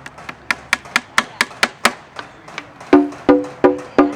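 Candombe drum played with a stick: a run of sharp dry wooden clicks, about four a second, then from about three seconds in louder strokes on the drumhead that ring with a clear pitch.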